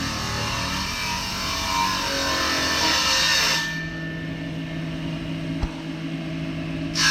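Woodworking machine cutting timber: a loud hiss of cutting that stops abruptly about three and a half seconds in, leaving the machine's steady hum, then starts again at the very end.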